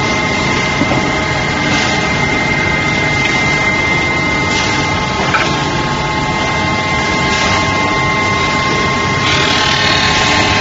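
Brake lining arc grinding machine running: a loud, steady machine drone with a high whine, its grinding noise swelling about every three seconds and turning harsher near the end.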